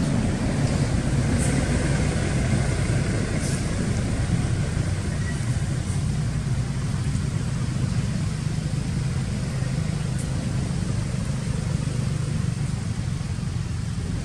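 Steady low outdoor rumble with no distinct event in it.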